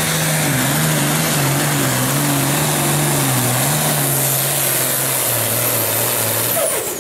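Diesel engine of a John Deere pulling tractor running flat out under load while dragging a weight-transfer sled, its note wavering and sagging slightly. About six and a half seconds in, the engine sound drops off sharply and a high whine falls away, as the throttle is let off at the end of the pull.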